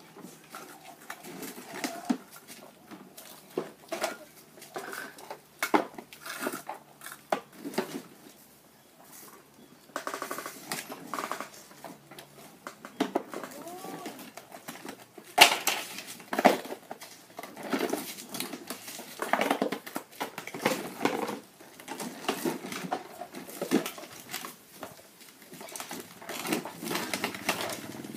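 Irregular clattering and knocking of small hard objects, with one sharp knock about halfway through that is louder than the rest.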